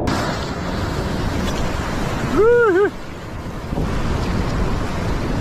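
Ocean waves surging against a rock shelf, with wind buffeting the microphone. About halfway through, a short pitched call rises and falls twice.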